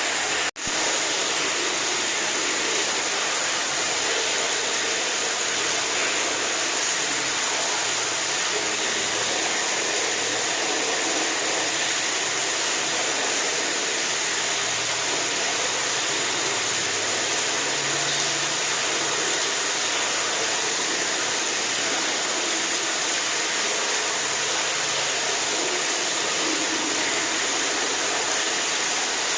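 Steady rushing of running water, an even hiss strongest in the upper range, with a momentary break in the sound about half a second in.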